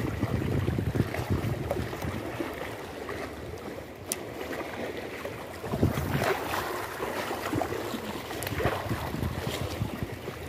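Wind buffeting the microphone over sea water lapping below, a rough, gusty rumble, with a sharp click about four seconds in.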